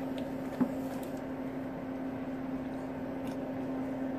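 Silicone spatula stirring thick rice-flour and coconut-milk batter in a stainless-steel pot, with a few faint clicks and a small tap about half a second in, over a steady low hum.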